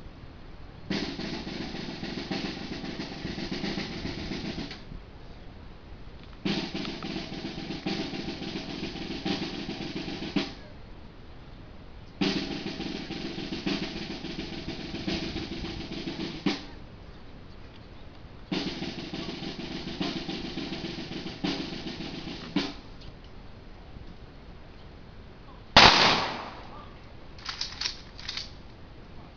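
Four long snare-drum rolls of about four seconds each, separated by short pauses. Near the end comes one sharp, loud rifle volley, followed by a few quick clicks.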